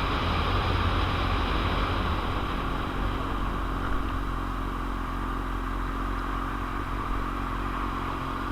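Heavy wind noise on the microphone over the steady running of a 2001 Suzuki GSX-R750's inline-four engine, cruising at an even speed.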